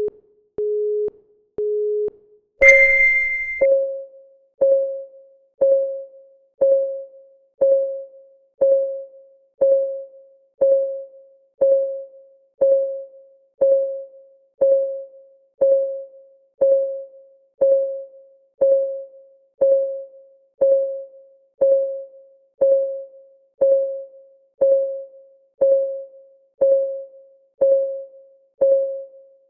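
Electronic countdown-timer sounds: three short low beeps a second apart, then a louder, higher beep about two and a half seconds in. After that comes a pitched, quickly fading tick once every second, the timer's ticking-clock sound.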